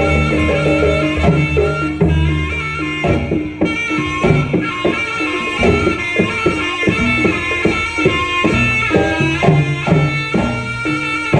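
Live kuda lumping (jaranan) ensemble music: a reedy wind instrument holds a sustained melody over fast, dense hand-drum strokes and struck pitched percussion.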